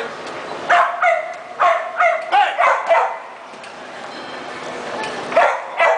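Dog "singing": a quick run of about seven short, high yipping calls, some sliding in pitch, then two more near the end.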